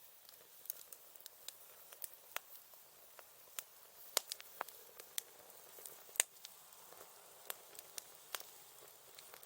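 Wood campfire crackling: irregular sharp pops and snaps over a soft hiss, the loudest pop about six seconds in.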